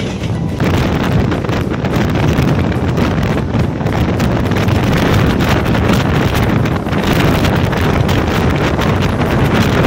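Wind buffeting the microphone aboard a moving passenger train, over the train's running noise; the wind grows louder about half a second in.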